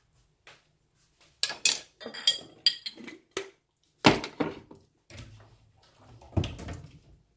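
Kitchenware clattering: a series of sharp knocks and ringing clinks as a wooden spoon, a stainless steel bowl and a glass jar are handled, with the loudest knock about four seconds in and another near the end.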